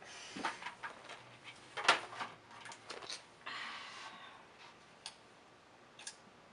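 Faint handling noises from a plastic DVD case: a few light clicks and taps, with a short rustle about three and a half seconds in.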